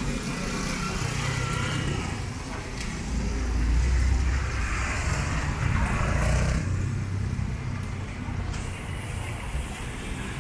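City road traffic: vehicles passing on a nearby street, with a low rumble that swells about four seconds in and again around six seconds.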